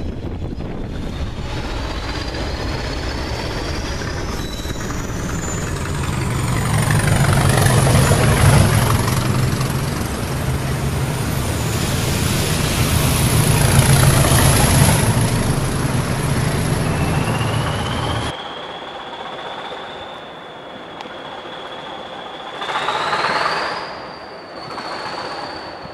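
British Rail Class 20 diesel locomotive passing under full power ('thrash'): a loud, low engine throb with a high turbocharger whistle rising in pitch, swelling to two peaks as the train goes by. After a cut, another diesel locomotive approaches more quietly, its whistle rising and the engine swelling briefly near the end.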